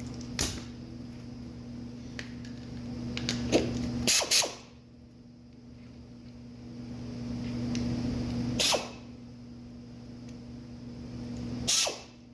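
A power tool's motor running in spells of a few seconds with a steady hum, with sharp clicks and knocks as it starts and stops, as in tool work during a brake job.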